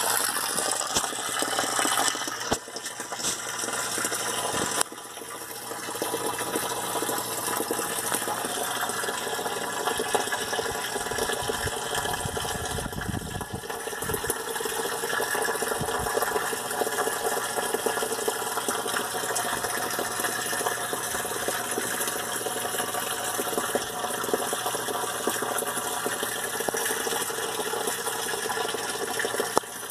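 Water running and splashing steadily in an aquaponic system, a stream pouring and falling into the water.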